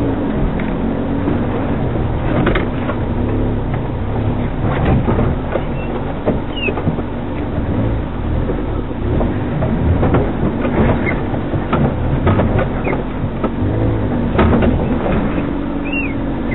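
Off-road 4x4's engine running at low revs, crawling over rough trail terrain, its note rising and falling as the throttle changes, with knocks and rattles from the vehicle jolting over rocks and roots.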